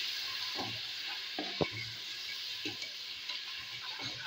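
Spiced onion-tomato masala sizzling in hot oil in a metal pot while a wooden spoon stirs it, with a few short knocks and scrapes of the spoon against the pot. This is the bhuna stage, frying the masala until it cooks through.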